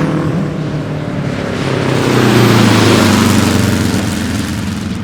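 Offenhauser inline four-cylinder racing engine of a 1950 Watson Indy car running on track as the car passes. It grows louder to a peak a little past halfway, then fades.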